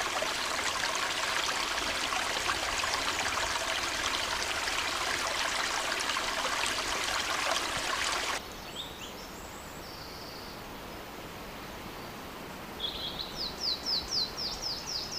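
Small woodland stream running with a steady rushing trickle, which cuts off suddenly about eight seconds in. After that the background is quieter, and near the end a bird sings a quick series of falling high notes.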